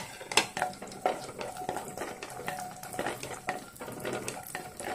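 Spatula stirring cashews and raisins frying in ghee in a ceramic-coated wok: irregular scraping clicks against the pan over a light sizzle.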